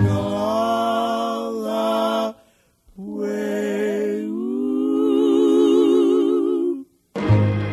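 Unaccompanied singing: two long held notes with vibrato, separated by a short break, the second one sliding up in pitch partway through. Fuller instrumental music starts again near the end.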